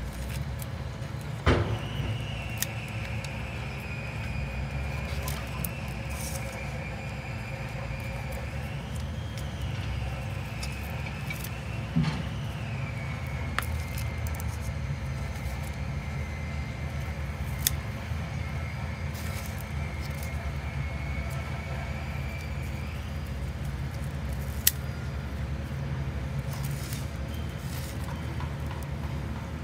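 Scissors snipping through garlic leaves, heard as a few sharp clicks, the loudest near the start, midway and near the end. Under them runs a steady low engine-like rumble, with a faint high whine that wavers and stops about three-quarters of the way through.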